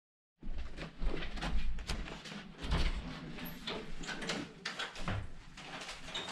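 Irregular knocks and clatter of a door being handled and footsteps as someone walks into a small bathroom, over a low rumble of camera handling. The sound cuts in abruptly about half a second in.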